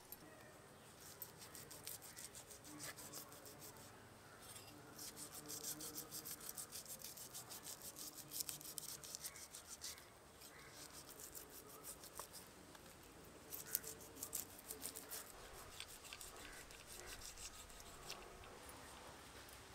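Scales being scraped off a pearl spot fish (karimeen): quiet runs of quick rasping strokes, a long run from about a quarter of the way in and a shorter one past the middle.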